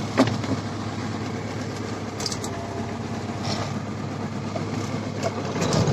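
MTZ-82.1 tractor's four-cylinder diesel engine running steadily, heard from inside the cab, with a few light clicks.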